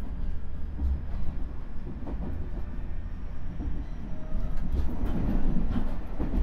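Running sound of a JR Central 373 series electric train heard from inside the KuMoHa 373 motor car: a steady low rumble of wheels on rail with a few clicks from rail joints, growing somewhat louder in the second half.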